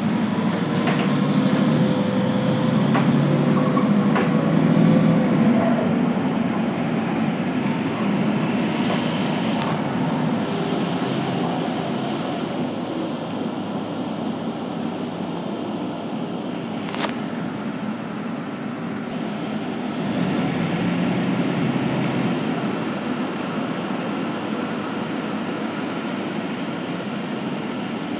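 Suburban bus driving along, heard from inside the passenger cabin: steady engine and road noise, with a level whine over the first five seconds or so. A few sharp clicks come through, the loudest about seventeen seconds in.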